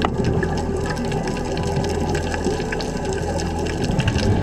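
Underwater sound as heard on the diver's camera: a steady rushing of water and bubbles with scattered sharp clicks and crackles.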